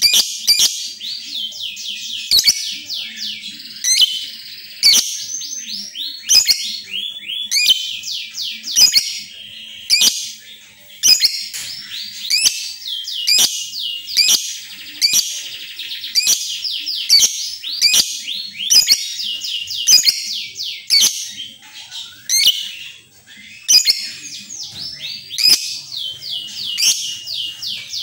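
Lovebird chattering continuously in gacor style: long runs of rapid, high-pitched falling chirps with hardly a break, mixed with frequent sharp clicks.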